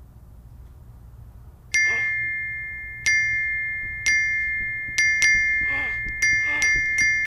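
Message-notification chimes: a bright two-tone ding, the first about two seconds in, then repeating faster and faster, about eight in all, each ringing out and fading.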